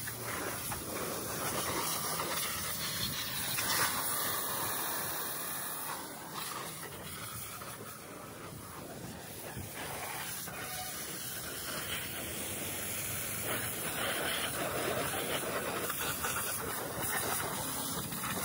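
Pressure washer's high-pressure water jet spraying onto a motorcycle's wheel and bodywork: a steady hiss, somewhat quieter for a few seconds in the middle.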